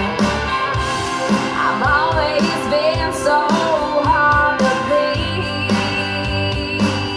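A pop-rock song with a singing voice, guitar and drums played back through a compact powered PA speaker outdoors for a sound test; a steady bass line comes in about five seconds in.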